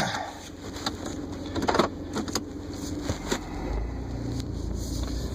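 A few knocks and clicks of handling around a car, then a car's low steady rumble sets in about three and a half seconds in.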